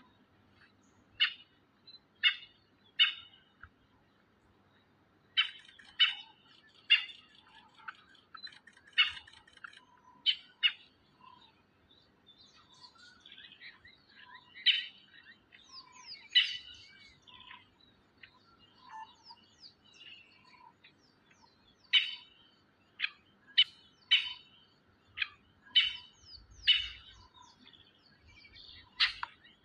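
A bird calling with short, sharp chirps, singly or in quick runs of two or three, with softer twittering in the pauses between bursts.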